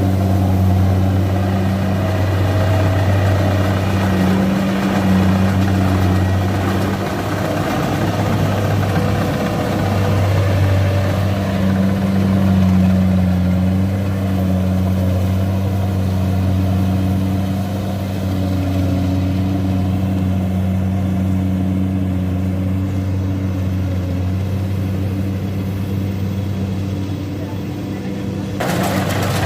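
Kubota DC-93 rice combine harvester's diesel engine running steadily under load while it cuts, a continuous loud engine hum that wavers briefly partway through.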